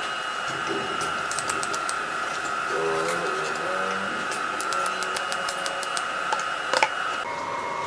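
TIG tack welding of stainless steel square tubing: scattered light metal clicks and taps as the tube is set in place, over a steady high whine, with a sharp crack near the end as the arc strikes. The whine drops in pitch shortly before the end.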